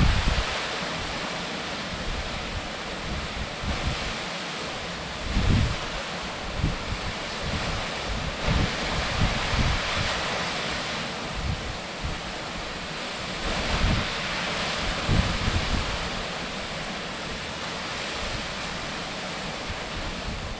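Steady rushing of a large plunge waterfall, about 85 m high, falling into its pool, with irregular low gusts of wind buffeting the microphone.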